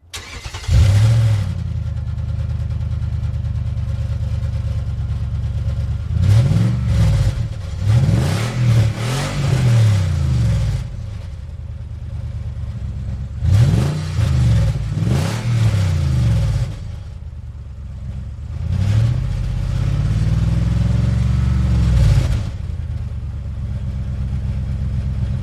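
Car engine starting, catching within the first second, then idling and being revved several times, each rev rising and falling in pitch. There are quick blips in two clusters, a longer, slower rev later on, and a steady idle in between.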